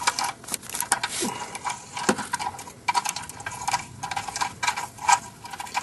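Hand wrench on exhaust nuts, with an irregular run of quick metallic clicks and clinks as the loose nuts are worked off.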